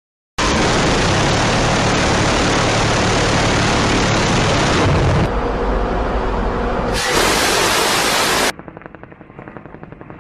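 M134 minigun, a six-barrel 7.62 mm electrically driven rotary machine gun, firing long sustained bursts: a very loud, continuous buzzing roar with the rounds too fast to count. It starts after a brief silence and is cut off abruptly near the end, where it gives way to a quieter, fast crackle of fire.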